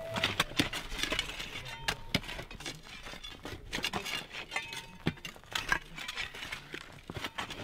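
Hand tools (picks, digging bars and shovels) striking rocky earth: irregular sharp clinks and knocks of metal on stone, several a second, mixed with softer scrapes of loosened soil.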